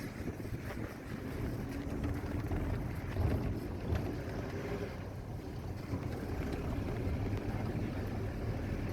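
Wind buffeting the microphone over a steady low rumble, with a faint hum between about two and five seconds in.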